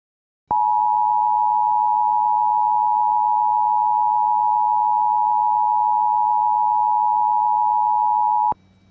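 Emergency Alert System two-tone attention signal, two steady tones near 1 kHz sounded together. It starts abruptly, holds unchanged for about eight seconds and cuts off sharply. It marks the start of an EAS alert, with the emergency voice message to follow.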